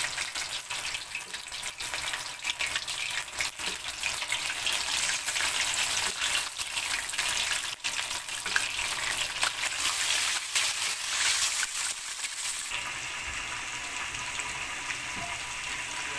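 Marinated chicken pieces frying in hot oil, sizzling with a dense crackle of pops and spatters. About three-quarters of the way through, the crackle gives way to a steadier, even sizzle.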